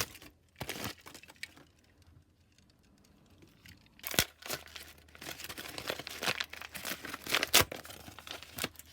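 Packaging being crinkled and torn open by hand as a fidget toy is unwrapped: a few short rustles, a pause, then steady crinkling from about four seconds in, with a couple of sharp snaps.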